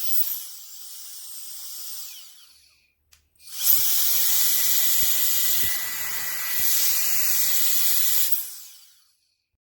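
CCV cordless electric air duster (a 150,000 RPM blower) running with a high-pitched whine and a rush of air. It winds down about two to three seconds in. It spins up again about three and a half seconds in, runs for about five seconds and winds down near the end.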